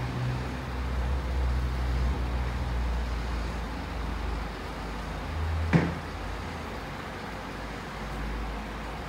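A low steady rumble that swells over the first few seconds and then eases, with one sharp click a little before six seconds in.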